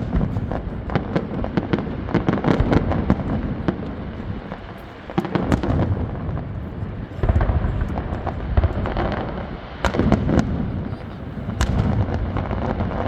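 Fireworks display: a continuous barrage of bangs and crackling with deep booms underneath, swelling into several louder clusters of bursts.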